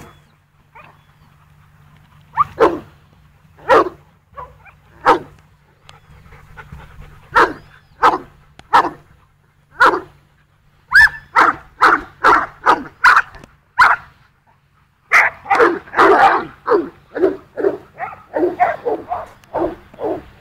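Dogs barking: single barks a second or so apart at first, then quick runs of barks about halfway through, and near-continuous overlapping barking in the last few seconds.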